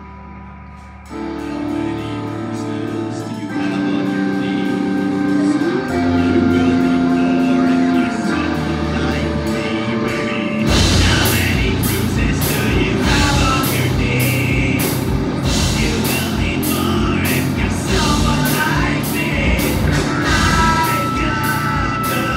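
Live rock band performing through a PA. After a brief lull, bass and guitar play held notes, then about ten seconds in the drums and full band kick in with a steady beat and a sung vocal.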